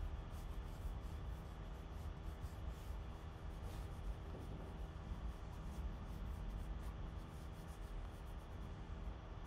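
Wooden graphite pencil sketching on paper: a run of short, light scratching strokes as the rough lines of a drawing are blocked in, over a steady low hum.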